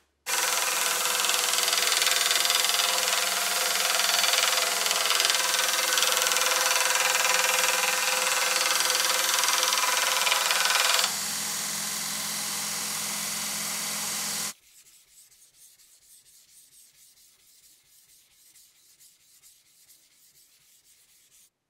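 Belt grinder grinding a leaf-spring steel draw knife blade: a loud, steady hiss of steel against the abrasive belt. About eleven seconds in, the grinding stops and the grinder's motor hums on alone, then stops abruptly a few seconds later. Faint rapid rubbing strokes follow.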